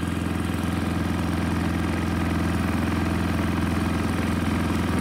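Small gasoline engine driving a water pump, running steadily at a turned-down throttle.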